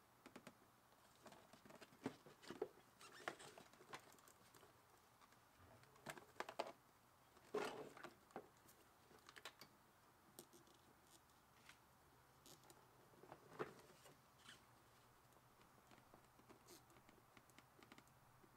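Faint, scattered clicks and rustles of hands working on hoses and plastic connectors in a car's engine bay, with the loudest handling noise about seven and a half seconds in.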